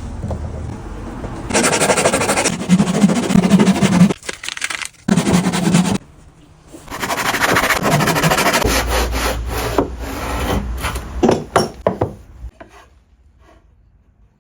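A jigsaw blade worked against wood in three bursts of fast scraping strokes, the longest about five seconds, followed by a few scattered clicks.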